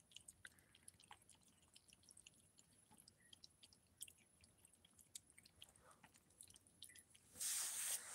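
Faint, quick clicking and smacking of cats chewing wet cat food from a plate. About seven seconds in, a louder rustling noise starts.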